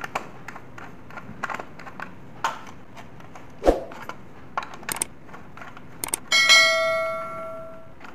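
Light clicks and scrapes of wire and screwdriver on a plastic switch board, then a subscribe-button sound effect: two sharp clicks followed by a bell ding that rings out and fades over about a second and a half.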